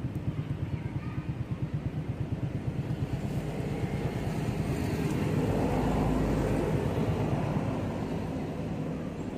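A motor vehicle's engine running with a low, pulsing hum. It swells louder around the middle and eases off near the end.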